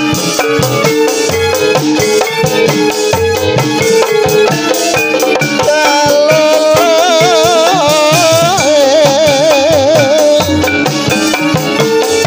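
Javanese gamelan playing dance accompaniment: metal keyed instruments and gongs struck in a steady, fast rhythm with drums. From about halfway through, a high wavering melody with heavy vibrato rides over it for several seconds.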